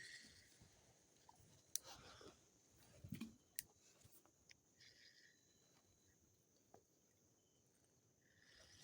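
Near silence: outdoor background with a faint steady high-pitched hiss and a few faint scattered clicks.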